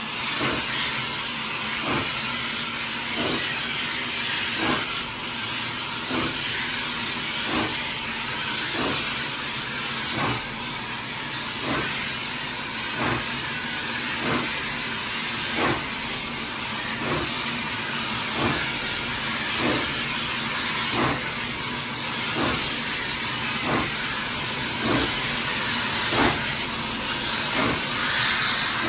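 Hunslet Austerity 0-6-0 saddle-tank steam locomotive working slowly, with a loud steady hiss of escaping steam and slow, regular exhaust beats a little over a second apart.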